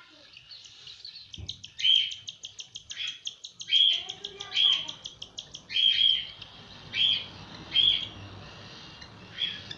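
Cockatiel chicks begging for food while an adult cockatiel feeds them: short high calls repeated about once a second, over a fast run of ticking chirps, about ten a second, that stops about six seconds in.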